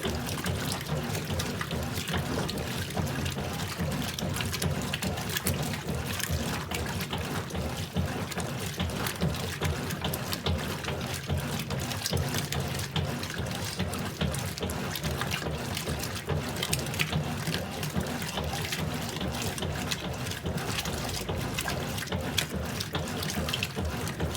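Consul Pratice 6 kg washing machine with water running and splashing in its tub, a steady watery noise with many small splashes.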